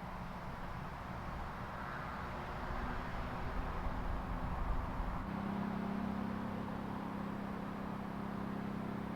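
Street traffic: a motor vehicle goes by, swelling and fading, then a steady low engine hum sets in about five seconds in.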